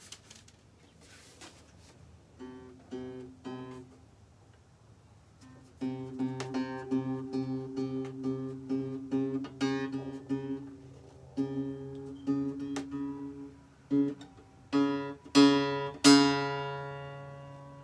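Acoustic guitar played by hand: a few picked notes after a quiet start, then plucked chords from about six seconds in, closing on a few loud strummed chords that ring out and fade.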